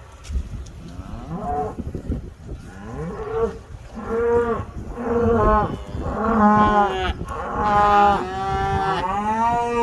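Cattle mooing: a string of about seven long calls one after another, growing louder toward the end.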